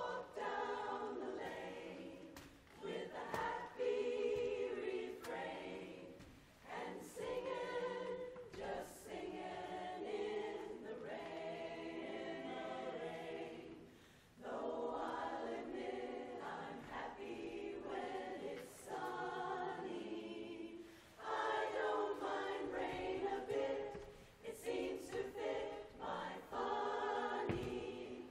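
Women's chorus singing a cappella in close harmony, in phrases separated by short breaths.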